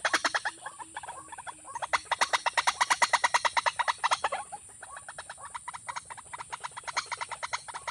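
A fast, pulsing animal call: a steady train of rasping clicks at about ten a second, going on without a break and growing softer for a few seconds past the middle.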